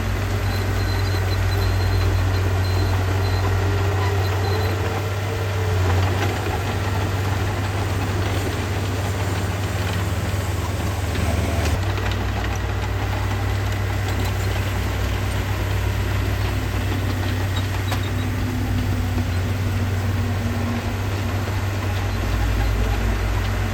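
Heavy earthmoving machine's engine running steadily with a deep, low drone, its note shifting a couple of times.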